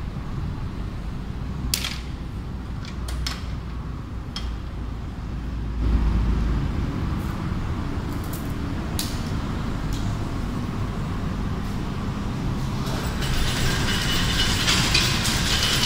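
Chain-link fence weaving machine running with a steady low rumble and a few sharp metallic clicks. The rumble grows louder about six seconds in, and near the end a louder, harsher rattle joins it.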